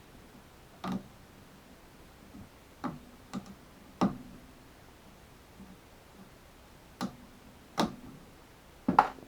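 About seven sharp, irregularly spaced taps and knocks of hand tools on a window screen frame, the last near the end the loudest. They are typical of the small screwdriver and hammer used to tap out a rusted screen spring.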